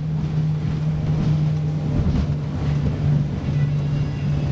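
Motorboat engine running steadily under way, a constant low drone, with water and wind noise over the hull.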